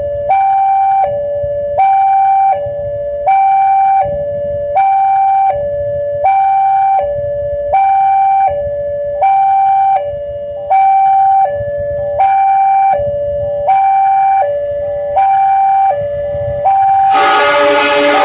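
Railway level-crossing warning alarm sounding a repeating two-tone electronic signal, a higher tone then a lower one, about one cycle every second and a half, which warns that a train is approaching. About a second before the end, loud train noise cuts in over it.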